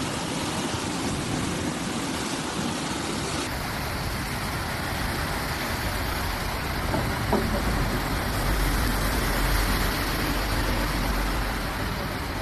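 Steady rush of floodwater, with a deeper rumble coming in during the second half.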